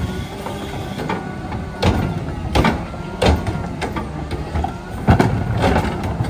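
Mack LR garbage truck idling while its Curotto Can arm lifts and tips a plastic wheeled trash cart, with a thin rising-and-falling whine under the engine. The cart bangs against the arm about five times before it is set back down.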